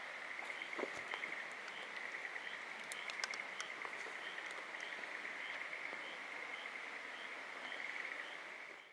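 A chorus of frogs calling steadily as one dense, continuous trill, with a fainter call repeating about twice a second above it. A few sharp light clicks come in about one and three seconds in.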